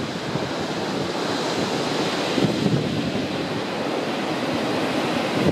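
Blizzard wind blowing hard and steadily, with gusts buffeting the microphone into a low rumble.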